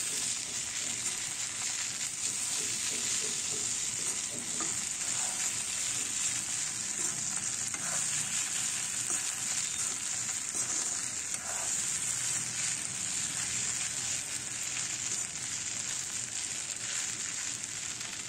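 Fusilli pasta and vegetables sizzling steadily in a hot black kadai while being stirred with a steel spoon, with light scraping against the pan.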